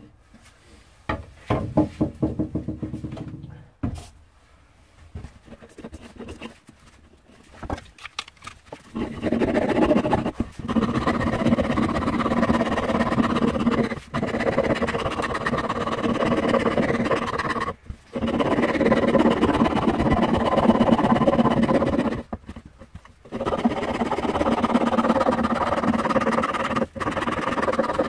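Steel hand rasp being worked along the edge of an oak handle blank. Scattered scraping at first, then long runs of rapid rasping strokes from about a third of the way in, broken by a few short pauses.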